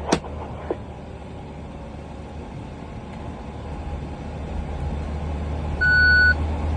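Fire engine's engine running as a steady low drone that slowly grows louder. There is a sharp click right at the start, and near the end a single high electronic beep about half a second long.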